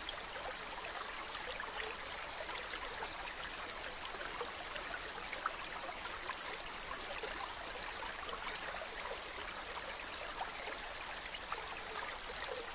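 Stream of running water: a steady babble with many small splashes and drips.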